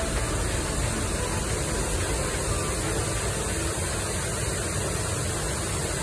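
Steady rush of water from a waterfall cascade tumbling over rocks, an even noise that does not change.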